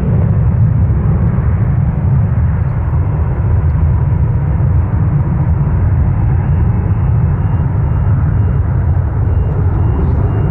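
Jet engines of a Boeing 767-200 freighter, a steady low rumble with no rise or fall.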